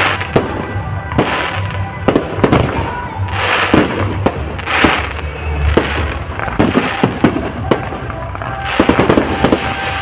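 Aerial fireworks display: shells bursting one after another with sharp bangs and spells of crackling.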